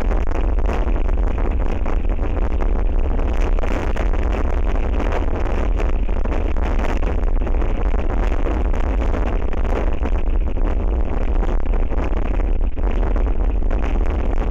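Strong wind buffeting the nest camera's microphone: a steady, loud rumble with a constant hiss.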